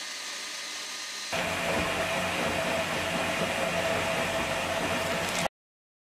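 KitchenAid stand mixer motor running, beating butter, a steady whir. About a second in it steps up louder, then it cuts off suddenly near the end.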